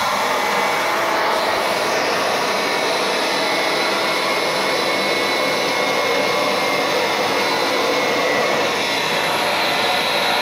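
Bissell upright carpet cleaner running steadily, a rush of suction with a faint high whine from its motor, as it is pushed across carpet.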